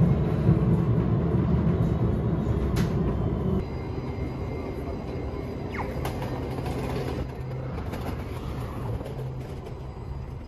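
Rail vehicle running, a heavy low rumble that drops away about a third of the way in, with a short falling squeal near the middle.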